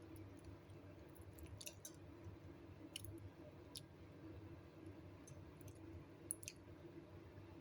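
Near silence: a low steady room hum with a few faint, sharp clicks scattered through it, about half a dozen in all.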